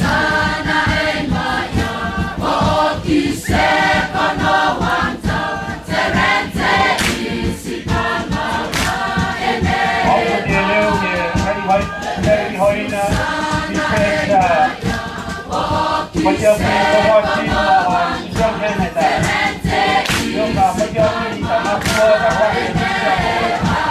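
A large group singing a Rotuman hafa dance song in chorus, many voices together over a steady percussive beat.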